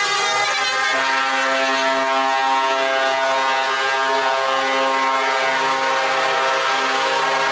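Truck air horns sounding long and loud as trucks drive past one after another, several horn tones overlapping. The chord changes about a second in, and a lower tone joins about five and a half seconds in.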